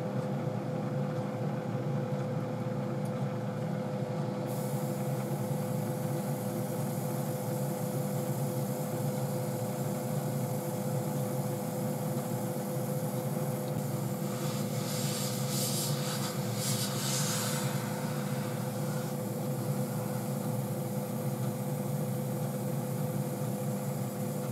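Airbrush hissing as it mists thinned matt varnish onto a model locomotive body in very light passes. The hiss starts a few seconds in and comes on stronger several times near the middle, over a steady machine hum.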